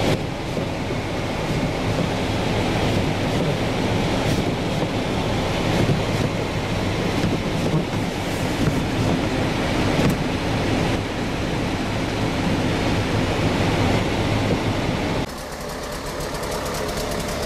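Steady engine-and-fan rumble heard inside a car's cabin, with a few knocks and scrapes of a plastic snow shovel clearing snow from the windscreen. About fifteen seconds in it cuts to a quieter steady engine hum.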